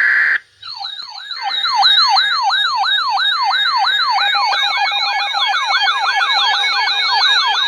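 Emergency alert attention signal made of electronic siren tones: several overlapping sweeps rise and fall a few times a second, one set low and one high. A broken beeping tone joins them about four seconds in. A short steady tone at the very start cuts off just before the sweeps begin.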